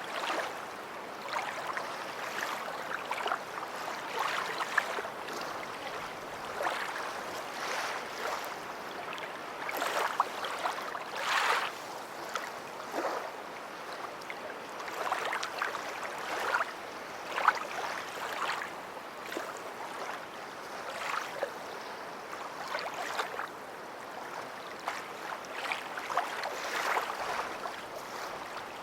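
Sea waves washing onto a beach: a steady wash broken by many short splashes.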